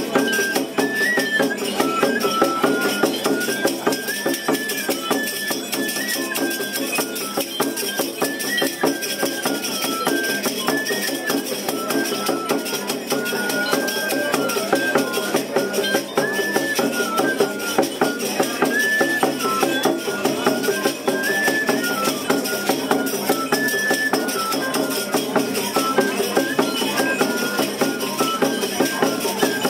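Yoreme pascola music: a cane flute plays a repeating high melody in short stepped phrases, over a hand drum beaten by the same musician. It is mixed with the shaking of the pascola dancer's cocoon leg rattles and belt bells as he dances.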